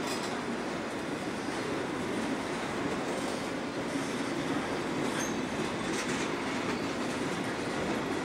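Empty steel wagons of a freight train rolling past: a steady noise of wheels on rail, with a brief high squeak about five seconds in.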